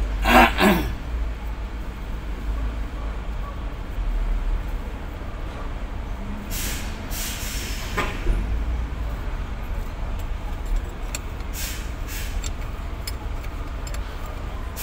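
A wrench clicking and knocking on the fittings of a diesel inline injection pump, over a steady low rumble. There is a loud short sound that slides down in pitch just after the start and a short hiss about halfway through.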